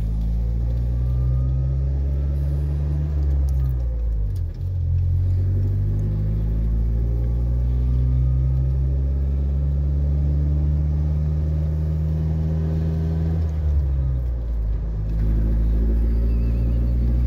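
Ford Ranger's 2.3-litre four-cylinder exhaust through a Thrush glasspack muffler, a low steady drone heard from inside the cab while driving. The engine note dips and picks back up twice, about four seconds in and again near fourteen seconds, as gears are changed.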